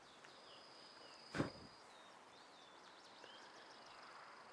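Faint high-pitched chirping with a thin, steady high tone, typical of small birds or insects in the open. A single thump about a second and a half in.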